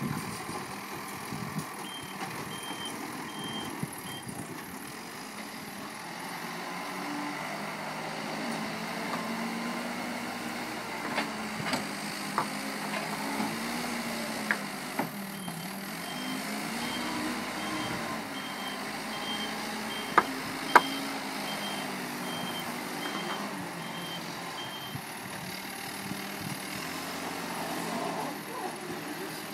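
A vehicle's reversing alarm beeping in an even series, briefly about two seconds in and again for about ten seconds from the middle, over an engine running and rising and falling in pitch. A few sharp knocks come through, the loudest two close together about two-thirds of the way through.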